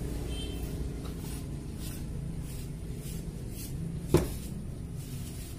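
A single sharp click or knock about four seconds in, over a low steady hum.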